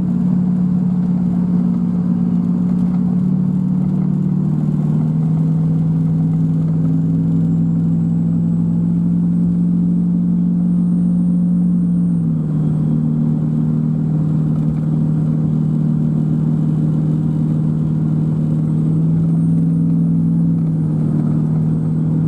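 2008 Ford F-250's 6.4-litre Power Stroke twin-turbo V8 diesel pulling hard up a steep grade with about 12,000 pounds in tow, heard inside the cab. A steady, loud drone that steps down in pitch about 4 seconds and again about 12 seconds in.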